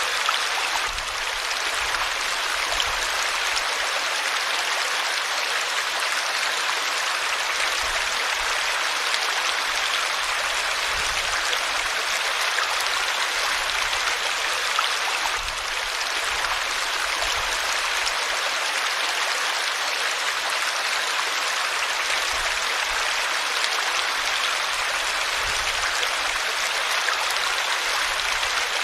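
River water flowing steadily: an even, unbroken hiss of moving water.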